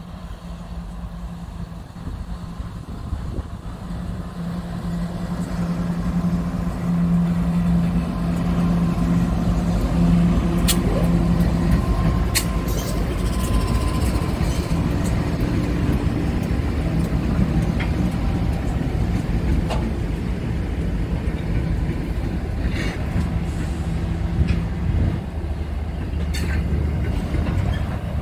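A diesel freight train's locomotives approaching and passing, their engines' steady drone growing louder over the first several seconds. The wagons then roll by with a rumble and occasional sharp clicks.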